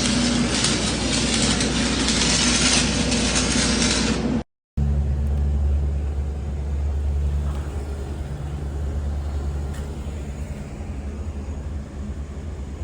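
Stick-welding arc burning a 6010 rod, a loud steady crackling hiss, until a cut about four and a half seconds in. After the cut an engine runs with a steady low hum.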